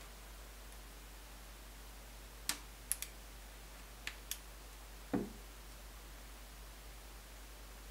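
Plastic clicks from fingernails and fingertips working at the back and side edge of a white Samsung Galaxy Tab E tablet while it is handled: several sharp clicks, then a duller knock about five seconds in.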